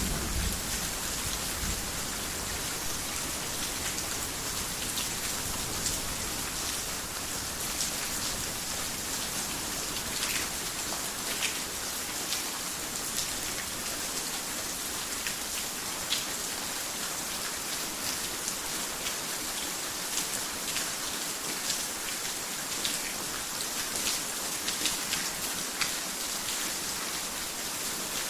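Heavy rain on a roof: a steady dense hiss with scattered sharper drop hits. A low thunder rumble dies away in the first second or two.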